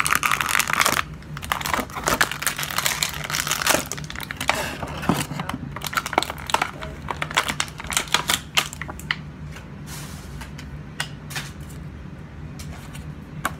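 Clear plastic toy wrapper crinkling and crackling as hands tear and pull it open, busy at first and thinning to scattered crackles over the last few seconds.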